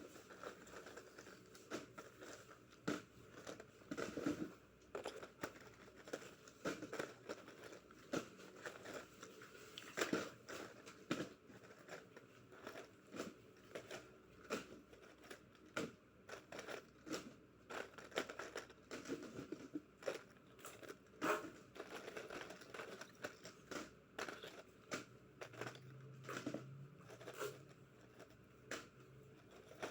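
Plastic packaging being handled and opened by hand: irregular crinkling and rustling with many small clicks and tearing sounds.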